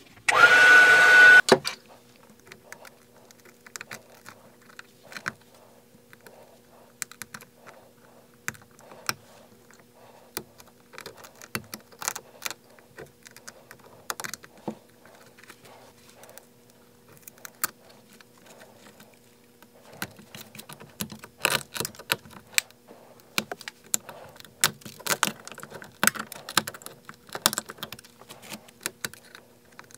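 A short, loud blast of air from a heat gun, about a second and a half long, then a craft blade prying and scraping shattered iPhone 12 back glass off the frame. The glass work makes scattered small clicks and ticks over a low steady hum, and the clicks come more often in the second half.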